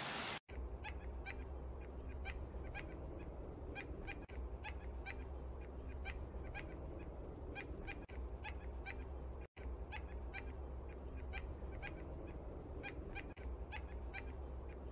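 Gray-breasted mountain toucan calling in a rapid series of short, sharp notes, about two to three a second, over a steady low hum. The sound cuts out briefly twice.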